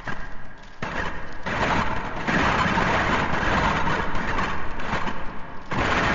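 Metal chains rattling and clinking in a dense continuous jangle, building up over the first two seconds, breaking off briefly near the end and starting again: an anime chain sound effect.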